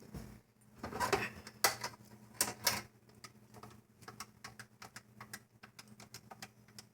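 Pay phone being worked by hand before a call: a few louder clicks and clunks in the first three seconds, then a run of light, fairly regular mechanical clicks.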